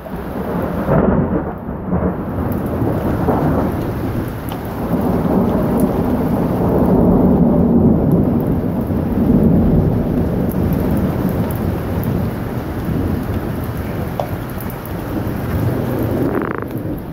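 Thunder rumbling long and low, swelling about a second in and again from about seven to ten seconds, over steady rain pattering into puddles on a wooden deck.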